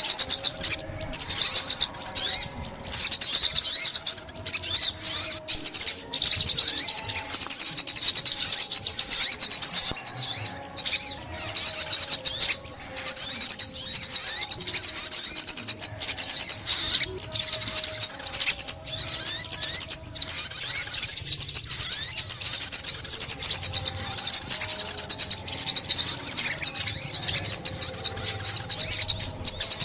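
Sunbird song: a rapid, continuous stream of high-pitched twittering chirps.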